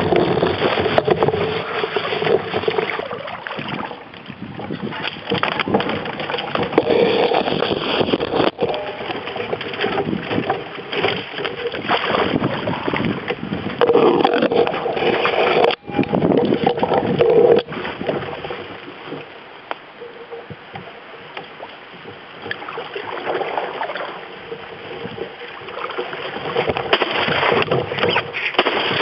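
A canoe being paddled along a river: paddle strokes splashing and water gurgling against the hull, uneven and fairly loud, easing off for a while in the second half.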